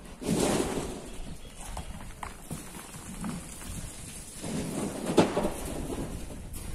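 Loose earth and gravel pouring down a quarry wall: a noisy rush that swells twice, briefly near the start and again about four and a half seconds in, with a sharp knock at the peak of the second.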